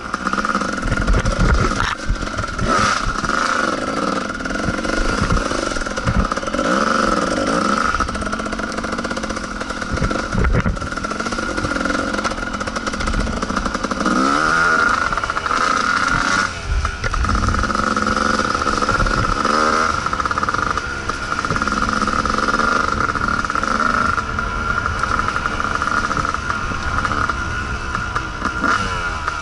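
Kawasaki KDX220 two-stroke dirt bike engine running under load while riding a trail, its revs rising and falling with the throttle. There is a quicker run of revving up and down about halfway through.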